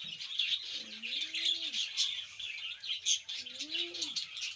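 Small caged pet birds chirping continuously in a dense chatter. Two lower calls, each rising and then falling and lasting about a second, come about a second in and again near the end.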